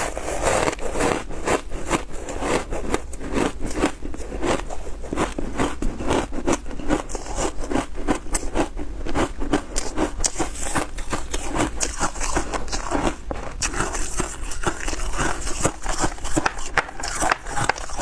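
Close-miked crunching and chewing of frozen shaved-ice blocks, a dense, continuous run of crisp crackles as the ice breaks up in the mouth.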